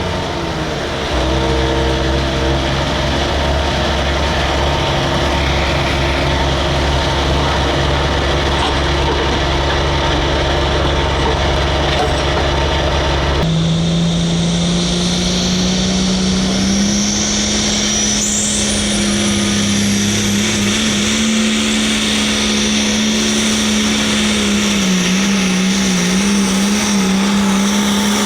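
Hot Farm class pulling tractor's turbocharged diesel engine running hard under load. About halfway through the engine note changes abruptly to a steady higher pitch.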